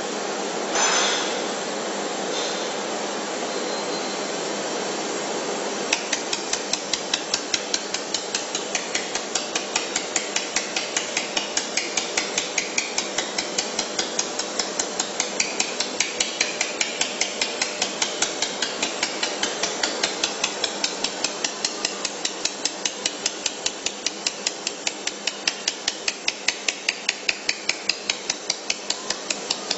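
Welding machine running with a steady hiss, then from about six seconds in firing in a regular rhythm of sharp snaps, about two a second.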